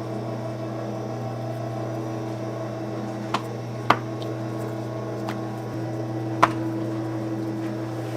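Commercial kitchen noise: a steady mechanical hum from running equipment such as a burner blower or exhaust fan, with three sharp clanks of metal utensils or cookware, two of them loud, about three and a half, four and six and a half seconds in.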